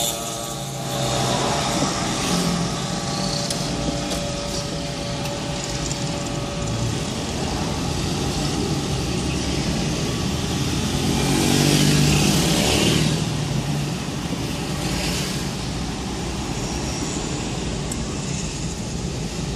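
Slow, congested road traffic: a steady mix of engine and tyre noise from the surrounding cars, with a louder vehicle, rising in pitch, passing close by about eleven to thirteen seconds in.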